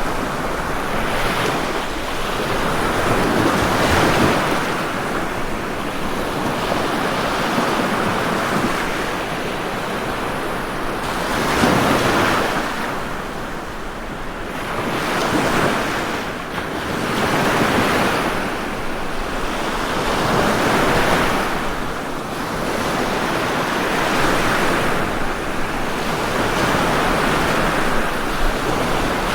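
Ocean waves breaking and washing on a shore, a steady rush of surf that swells and eases every few seconds.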